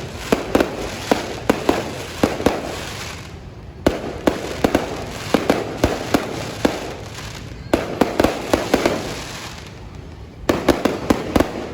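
Aerial fireworks going off in rapid volleys of sharp bangs with crackling between them, a fresh volley starting about every four seconds.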